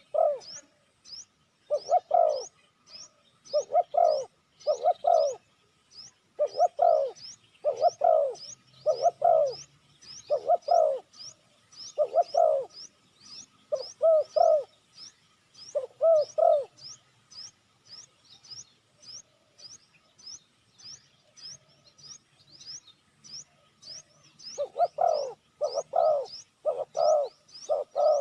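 Spotted dove cooing in short, repeated low phrases, falling silent for several seconds before calling again near the end. Behind it, a thin high chirp repeats steadily about twice a second.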